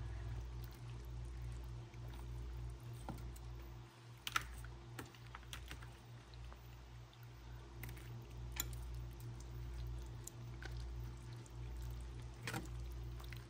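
Metal spoon stirring elbow pasta through thick cream sauce in a skillet: scattered wet squelches and light clicks of the spoon against the pan, the sharpest about four seconds in and near the end, over a steady low hum.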